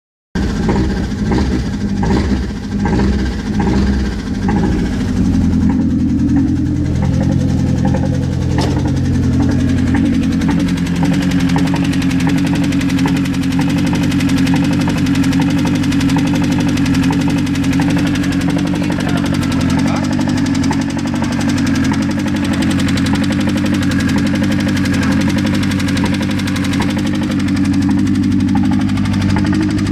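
Mazda car engine running, uneven for the first few seconds and then settling into a steady idle with a rapid ticking running through it. This is the strange engine noise that appeared after the car had stood unused for a while.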